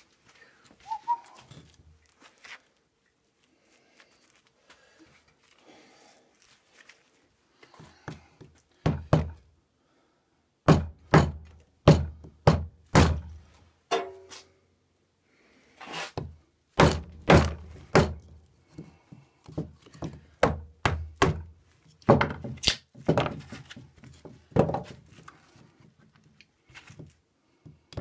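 A rubber mallet striking the spine of a small fixed-blade neck knife, batoning it down through a block of wood. The dull thuds start about a third of the way in, a few at first, then come steadily about twice a second.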